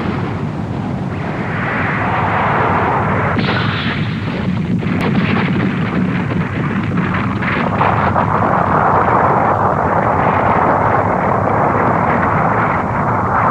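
Animation sound effect of rock and earth bursting apart in a long, continuous rumble. It crackles with breaking debris about halfway through and grows fuller near the end.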